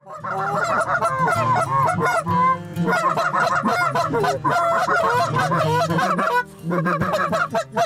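Canada goose call blown rapidly, a fast run of clucks and honks to draw in flying Canada geese, with a short break about six and a half seconds in.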